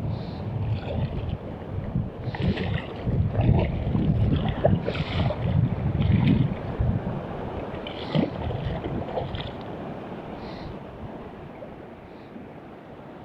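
Wind buffeting the microphone in uneven gusts, dying down over the last few seconds, with short scattered higher-pitched swishes over it.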